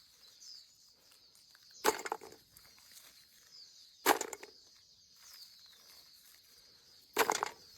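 Three short rustling knocks about two seconds apart, the last one longer, over a faint steady high-pitched hiss.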